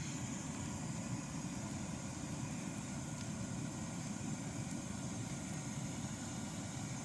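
Bonfire burning with a steady low roar and a few faint clicks.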